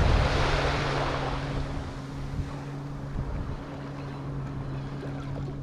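A small wave washing up the sand at the water's edge, its swash fading away over the first second or two, then low, steady lapping with wind rumbling on the microphone. A steady low hum runs underneath.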